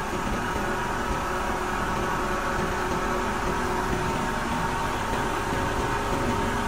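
Steady drone of running heavy machinery, with several faint steady tones over an even noise and no change in level.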